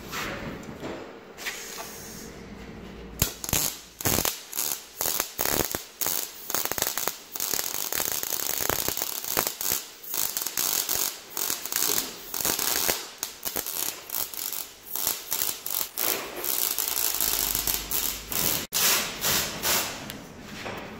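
MIG welder arc crackling through a long run of short tack welds on sheet-metal body panel, starting and stopping many times from about three seconds in.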